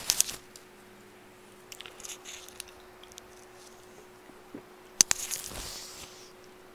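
Rustling and handling noise close to the microphone as a surgical face mask is pulled down and put back on, with a sharp click about five seconds in. A faint steady hum runs underneath.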